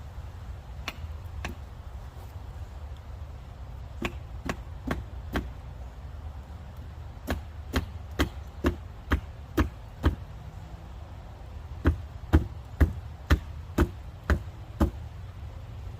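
Wedges being hammered in behind a shelter post: sharp knocks at about two a second, in runs of four to seven blows with short pauses between.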